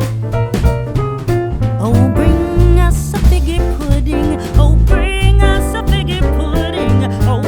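Background music: an upbeat song with bass, drums and chords, and a singing voice coming in about two seconds in.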